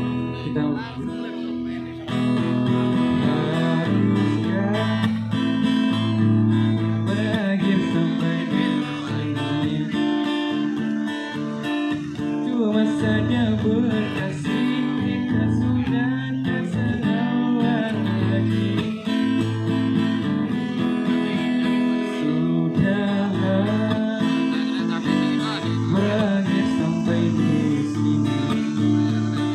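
Live acoustic guitar music, played steadily throughout: two acoustic guitars strumming chords with a melody line over them.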